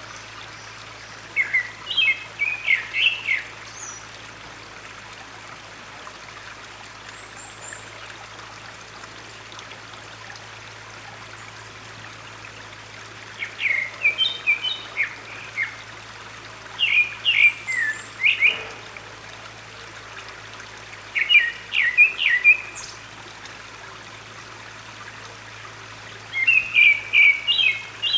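Grey-backed thrush singing short phrases of quick, varied notes, five phrases with gaps of several seconds between, over the steady sound of running stream water.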